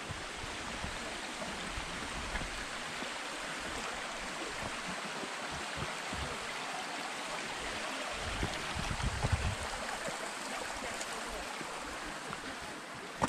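Shallow rocky stream running over stones: a steady rushing babble. A few low thuds come about two-thirds of the way through.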